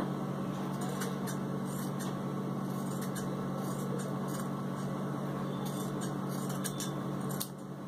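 Soft, scattered rustles and light clicks of cloth being handled, over a steady low hum.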